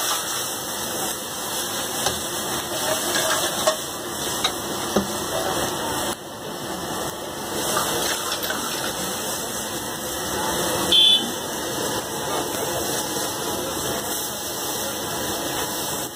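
Iron wok of oil over a high gas burner flaring up and sizzling: a steady rushing hiss with a few clacks of the ladle. A short high tone cuts in about eleven seconds in.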